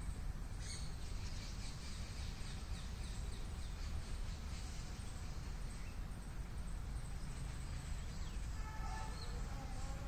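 Outdoor ambience: a steady low rumble and hiss with faint bird chirps. Near the end a short pitched call comes in.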